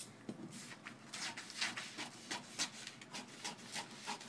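Large tailor's scissors cutting through heavy pattern paper, a run of crisp snips about two or three a second.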